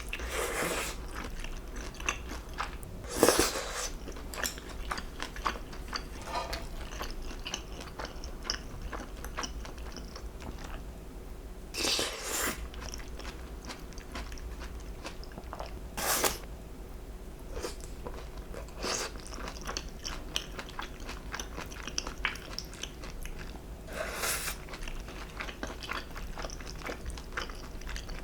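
Close-miked eating: steady chewing with crisp crunching, broken by about five louder crunchy bites.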